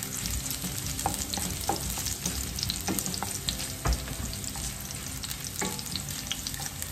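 Chopped garlic and ginger sizzling in hot vegetable oil in a frying pan, stirred with a cooking spoon that scrapes and taps the pan, with a steady fry and many small sharp pops and ticks throughout.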